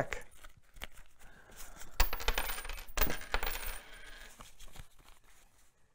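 Coins from a wallet clinking onto a wooden tabletop, two sharp clinks about two and three seconds in with a brief metallic ring, among lighter clicks and the rustle of the wallet and paper bills being handled.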